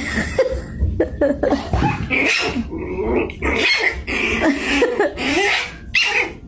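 A dog growling and grunting in a string of short, uneven sounds.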